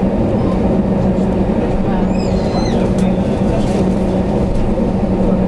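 Jet airliner cabin noise while taxiing: a steady engine rumble with a constant low hum. A brief high gliding sound comes about two seconds in.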